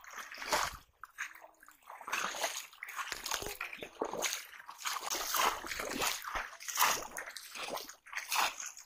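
Shallow water being waded through: irregular splashes and sloshes as legs push through it step after step.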